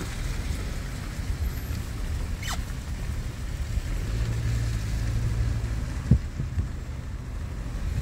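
Car rolling slowly on a wet road, heard from inside the cabin as a steady low rumble. A short squeak that falls in pitch comes about two and a half seconds in, and a single thump about six seconds in.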